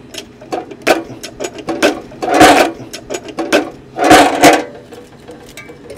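Clicks, clunks and metal rattles of a new metal chop saw being handled as its cutting head is worked up by the handle. Two longer, louder rattles come about two and a half and four seconds in.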